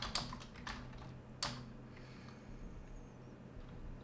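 Computer keyboard keystrokes: a few key clicks in the first second and a half, the loudest about a second and a half in, then only a low steady hum.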